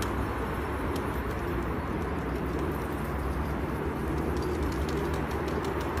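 A flock of fancy pigeons cooing together in a steady, dense murmur, with a low rumble underneath.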